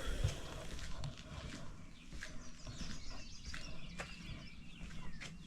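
Faint outdoor background with scattered bird chirps and a few light clicks.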